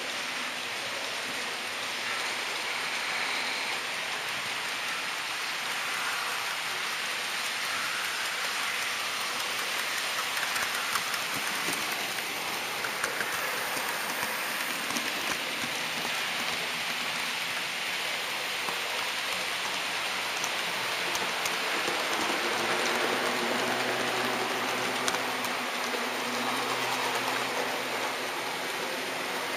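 HO scale model train rolling along its track with an on-board camera, a steady rushing rattle of small wheels on rail with scattered clicks over rail joints and turnouts. In the last several seconds a low hum joins in as another model train approaches on the next track.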